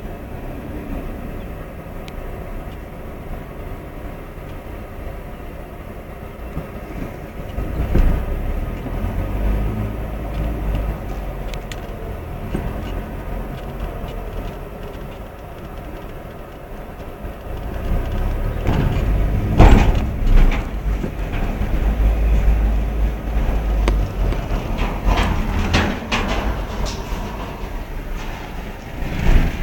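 Car driving slowly onto a ferry's steel boarding ramp, heard from inside the cabin: a quiet low rumble at first, then the heavier rumble of tyres on metal grating, louder from about two-thirds of the way in. Several clunks are heard as the car crosses the ramp.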